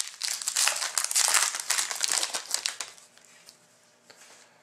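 A foil trading-card pack wrapper crinkling and tearing as it is opened and pulled off the cards. It lasts about three seconds, then stops, leaving a few faint handling ticks.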